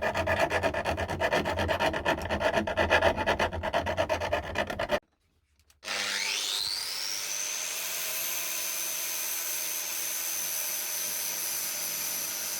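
Fast, even rasping strokes as the steel rivet heads on a saw handle are filed down to knock them out. After a short break, a small power tool spins up with a rising whine and runs steadily at a high pitch.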